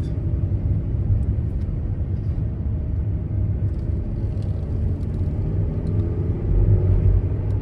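VW California camper van driving uphill, heard from inside the cabin: a steady low engine drone and road rumble, swelling a little near the end.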